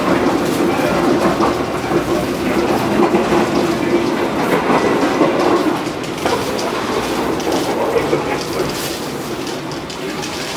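Moving passenger train heard from inside a K1 executive coach: a steady running rumble of the wheels on the rails with the clickety-clack of rail joints, a little quieter after about six seconds.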